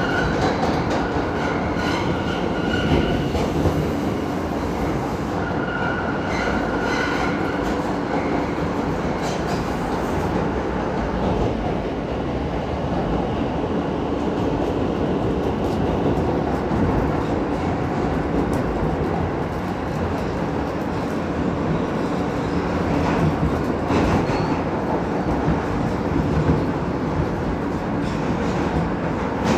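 An R160 subway car running on the track, heard from inside the car: a steady rumble and rattle of the wheels on the rails. A brief high-pitched tone sounds twice in the first eight seconds.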